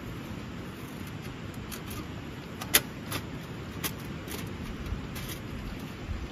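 Thin metal panels of a folding camp wood stove clinking and clicking as they are handled and slotted together: a few sharp clinks, the loudest a little under three seconds in, over a steady low background noise.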